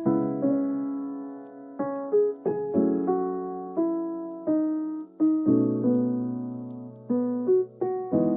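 Background music: a gentle keyboard tune of single notes and chords, each struck and left to fade, with no drums.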